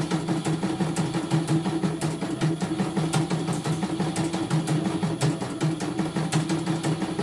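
CNY E900 computerized embroidery machine stitching steadily: a motor hum with a fast, even run of needle clicks as it sews a test design after repair.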